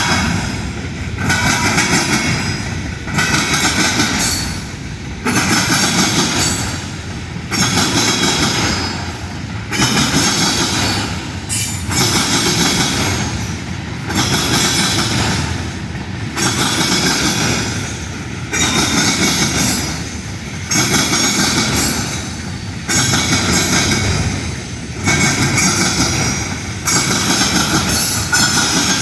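Union Pacific train cars rolling past, the wheels clattering in a regular rhythm that swells about every two seconds as each car's wheel sets go by.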